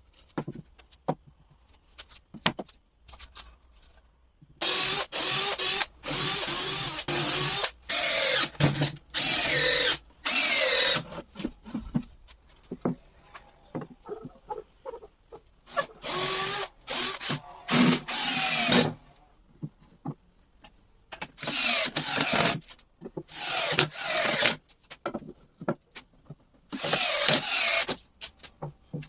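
Woodworking power tools running in repeated bursts of a few seconds each, their whine rising and falling as the load changes, with scattered clicks and knocks of wood and tools being handled in the pauses between.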